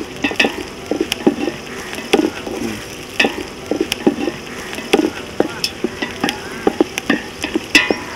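Wooden spatula stirring chopped onions and tempering spices frying in oil in a large metal pot: irregular knocks and scrapes of the spatula on the pot, one or two a second, over a steady sizzle.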